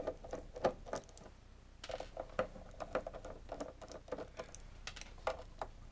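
A screwdriver undoing small screws from the back panel of an LED sign: an irregular run of short clicks and ticks as the screws are turned out.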